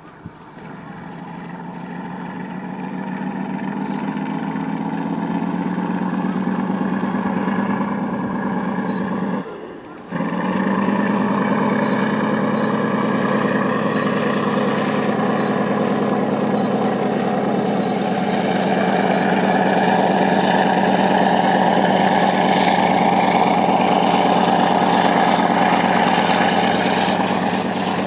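Diesel locomotive hauling a loaded coal train, its engine drone growing louder over the first several seconds as it approaches. The sound dips out briefly about ten seconds in, then carries on steady and loud as the train draws near.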